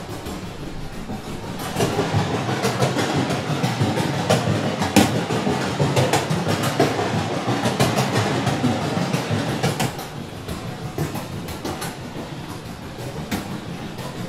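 A dense rumbling, crackling noise texture full of irregular clicks and rattles, from electroacoustic sound played back in the hall. It swells about two seconds in and eases back near ten seconds.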